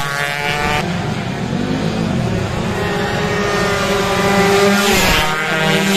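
Two-stroke 116 cc underbone racing motorcycles running hard past the listener, several engines at once. Their pitch climbs and drops as the riders work through the gears, with another engine rising near the end.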